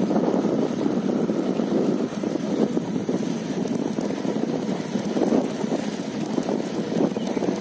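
Wind buffeting the microphone while riding a bicycle along a road: a steady, rough, fluttering noise with no engine tone in it.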